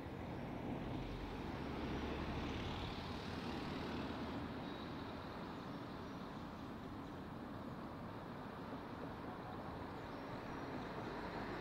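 A heavy engine running steadily: a low rumble under a broad hiss, swelling about a second in and then holding level.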